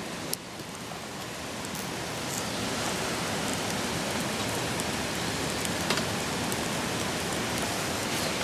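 A steady rushing noise, like a valley stream, that swells over the first few seconds. Scattered sharp crackles of wood burning in a small titanium box fire grill sound over it.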